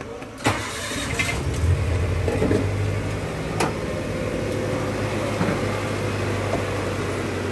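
Maruti Gypsy's four-cylinder petrol engine catching about half a second in, revving briefly, then idling steadily. It is the car starting again with its repaired engine control module refitted, after a shorted ECM had left it unable to start.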